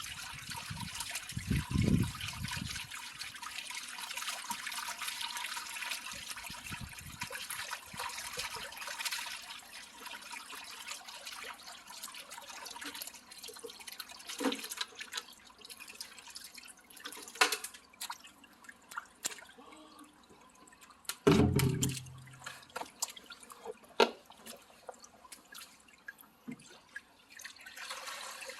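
Water pouring and splashing for the first several seconds, then dripping and trickling with scattered small knocks and a heavy thump a little past twenty seconds in.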